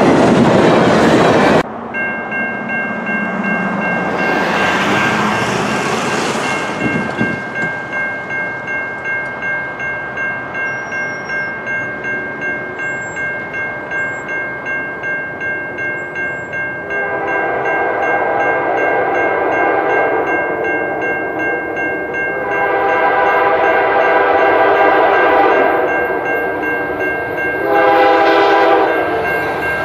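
A diesel locomotive's horn drops in pitch as the train passes, then cuts off. A railway level-crossing bell rings steadily at about two strokes a second as the gates come down. An approaching locomotive then sounds its horn in three blasts, the first two long, for the crossing.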